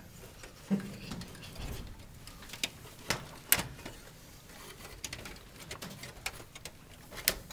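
Scattered clicks and light knocks of hands handling parts inside an open desktop computer case, around the hard drive and its cables. The sharpest click comes about three and a half seconds in.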